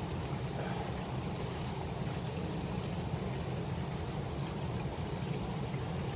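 Shallow river water flowing steadily over rocks.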